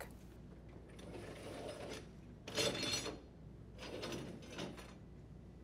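A dishwasher's upper wire dish rack being slid off its slide rails and pulled out, rattling and scraping on the rails in a few short spells, loudest about two and a half seconds in.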